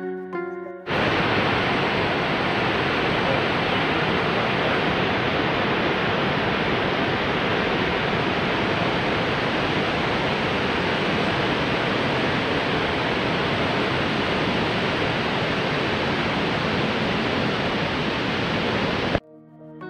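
Cumberland Falls, a large waterfall, rushing: a steady, even noise from deep to high that never changes. It starts abruptly about a second in and cuts off abruptly near the end.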